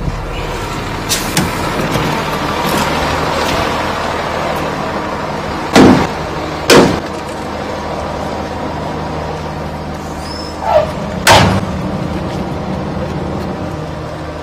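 Concrete mixer truck's diesel engine idling steadily, heard from inside the cab. Three loud, short bangs come about six, seven and eleven seconds in.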